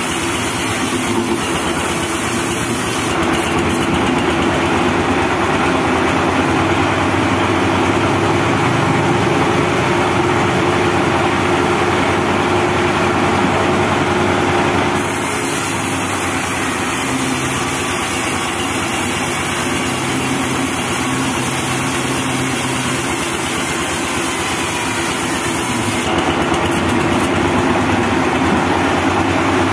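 Homemade band sawmill running steadily, its blade cutting lengthwise through a teak log. A brighter cutting noise comes in twice: from about three seconds in to about halfway, and again near the end.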